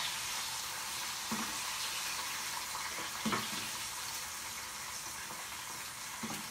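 Hot oil sizzling steadily as it is ladled over a whole starch-coated fish deep-frying in a pan, with a few soft knocks.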